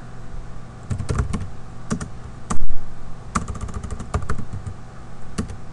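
Typing on a computer keyboard: irregular clusters of key clicks. There is one brief, much louder bump about two and a half seconds in.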